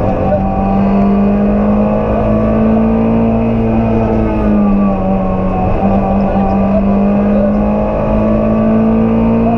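Rally car engine running hard at high revs, heard from inside the cabin. The pitch holds high and creeps upward, dips briefly about five seconds in, then climbs again.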